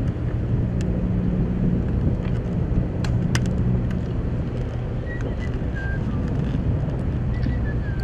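A steady low engine drone, with wind on the microphone.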